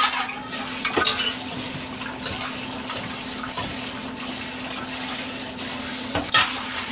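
Water running from a kitchen tap and splashing in the sink, with a few short knocks.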